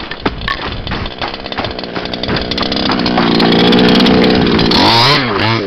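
Small two-stroke engine of a gas-powered 1/5-scale RC Baja buggy running, building to a long steady full-throttle run for about two seconds, then revving up and down in quick blips near the end.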